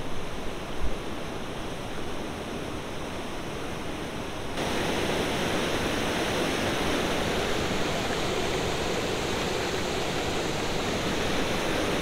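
A low, wide river waterfall rushing steadily, its flow fast. The sound jumps suddenly louder and brighter about four and a half seconds in.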